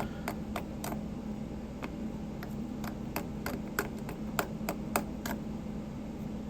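Irregular sharp metallic clicks and taps as the small parts of a zirconium fidget slider are handled and fitted, about fifteen over a few seconds, over a steady low hum.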